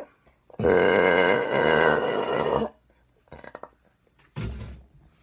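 A woman's long, loud burp lasting about two seconds, its pitch wavering throughout, followed a couple of seconds later by a short low burst.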